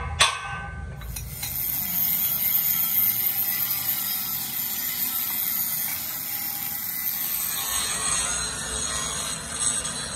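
Stick (manual metal arc) welding on steel plate: the arc crackles and sizzles steadily as a bead is run, after two sharp clicks at the start.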